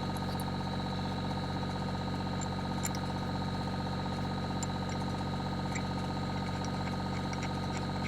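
Excavator engine idling steadily, with a few faint ticks over it.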